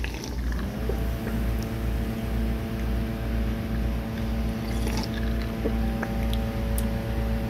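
A motor hum starts about half a second in, rising briefly in pitch, then holds steady over a low throb that pulses about twice a second. A man gulps soda from a cup under it.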